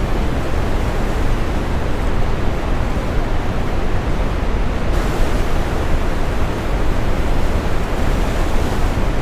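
Steady brown noise, a deep, even rumbling hiss, layered with ocean waves breaking. The higher wash of the surf grows abruptly brighter about halfway through.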